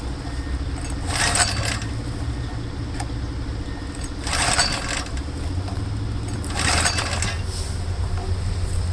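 Small two-stroke engine running roughly and popping, with four short louder surges. The owner puts the popping down to the wrong, too-short spark plug.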